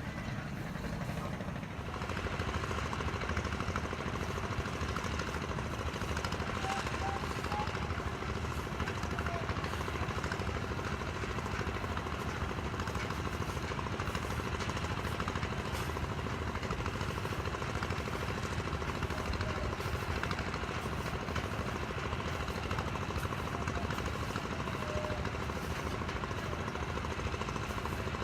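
An engine running steadily at close range with a fast rattle, getting louder about two seconds in and then holding steady.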